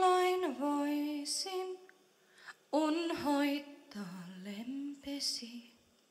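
A woman singing the closing phrases of a traditional Finnish folk song in slow, held notes that glide between pitches, with a short pause partway through; her voice fades out near the end.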